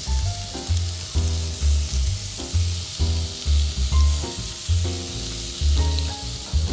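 Background music with a pulsing bass line over the steady hiss of bone-in ribeye steaks sizzling on a hot grill grate.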